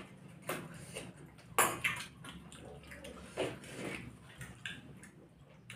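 Eating with the hands: fingers mixing wet rice and fish curry in stainless-steel bowls and plates. There are a handful of sharp clicks and clinks against the steel dishes, the loudest about one and a half seconds in.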